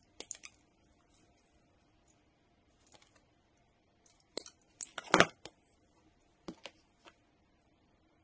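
Hands handling insulated wires and small pieces of heat-shrink tubing, giving scattered small clicks and rustles, with the loudest cluster about five seconds in.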